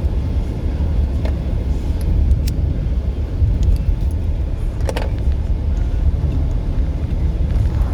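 Steady low rumble of a car on the move, heard from inside the cabin, with a few light clicks and rattles.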